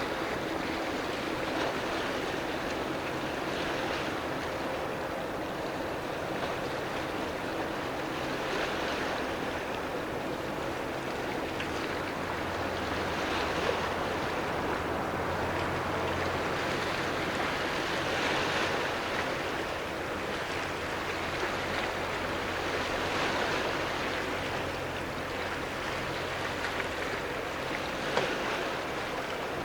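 Waves from a ferry's wake washing against the harbour edge in slow swells every four or five seconds. Under them runs a steady low mechanical hum from a building's ventilation.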